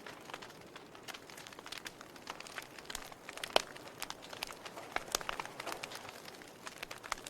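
Wood fire crackling and popping: irregular sharp snaps over a soft low hiss, with one louder pop about halfway through.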